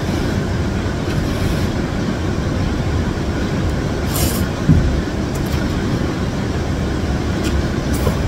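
Heavy rain making a steady low rumble, with a short slurp of instant noodles about four seconds in.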